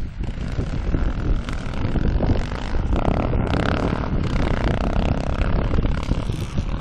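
Enduro motorcycle engines revving as several dirt bikes race along a dirt track, over wind rumbling on the microphone. The engine note comes through more clearly for a couple of seconds, about three seconds in.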